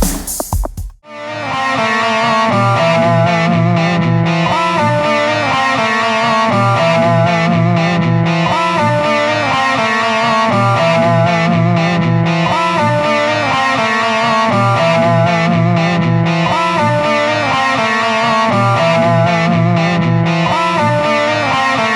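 Music: a distorted electric guitar playing a riff that repeats about every four seconds, taking over from a loud electronic beat that cuts off about a second in.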